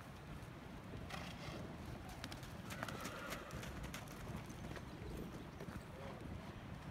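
Hoofbeats of a horse loping on soft dirt, dull thuds in the canter's rhythm.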